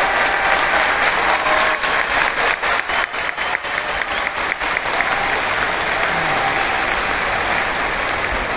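Large audience applauding steadily, with a run of sharper, closer hand claps standing out in the middle.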